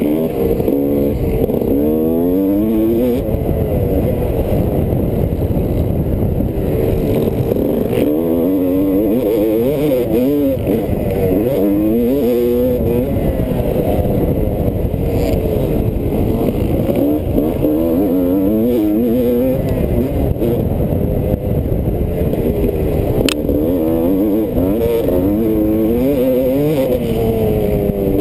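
Motocross bike engine at race pace, heard close up from on the bike: it revs up again and again, the pitch climbing then dropping sharply at each gear change or throttle roll-off into a corner.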